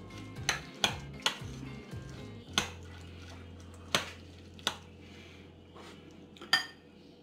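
Metal spoon clinking against a ceramic bowl while mixing fried tuna flakes with mayonnaise: about seven sharp clinks at uneven intervals, with soft scraping between them.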